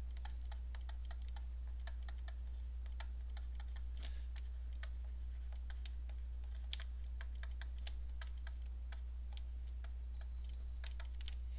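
Stylus tapping and scratching on a tablet screen during handwriting: scattered, irregular light clicks over a steady low hum.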